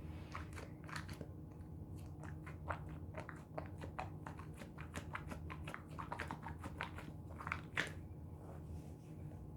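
Small plastic fidget toys being handled and rummaged through: an irregular run of sharp clicks and crackles, densest in the middle, over a steady low hum.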